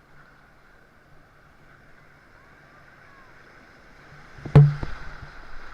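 Faint water sloshing and moving around the camera, then a sharp, loud knock about four and a half seconds in, followed by a few lighter knocks.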